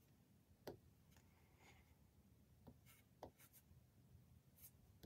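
Near silence, broken by a few faint taps of an Apple Pencil tip on the iPad's glass screen.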